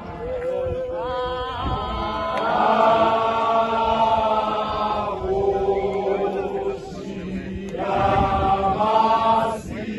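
A group of voices sings a slow, chant-like Zion Christian Church hymn in long held phrases, with short breaks between them.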